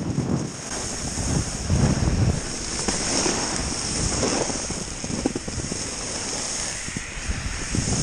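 Snowboard sliding and scraping over snow at speed, with wind rushing over the action camera's microphone: a steady rumble and hiss that swells in uneven surges.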